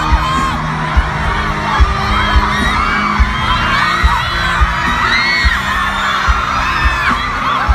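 A large crowd screaming and cheering over music, with a low thump roughly once a second.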